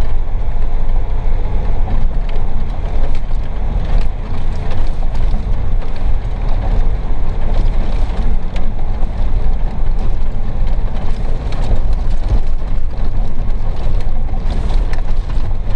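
4x4 off-road car driving over a rough, rocky track, heard from inside the cabin: a steady engine and tyre rumble, with frequent short rattles and knocks from the car jolting over the bumps.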